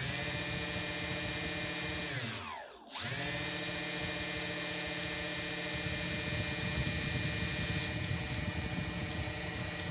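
DJI 2212/920kv brushless motors on an F450 quadcopter running with a steady whine and a rough knocking noise underneath. About two seconds in they wind down in pitch, then spin straight back up about three seconds in and run steady.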